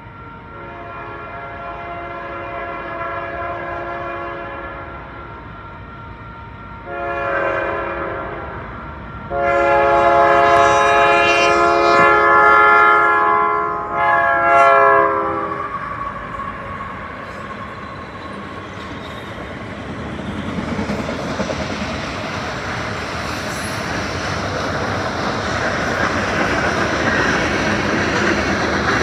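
Freight train's diesel locomotive air horn sounding several tones at once in four blasts for the crossing: a fainter long blast, a short one about seven seconds in, a long loud one, and a short one ending about fifteen seconds in. The locomotives and freight cars then pass at speed, and the noise of wheels on rail grows steadily louder.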